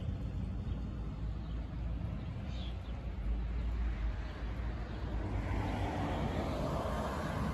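Wind buffeting the phone's microphone as a steady low rumble, with a broader rush of noise building over the last two seconds or so.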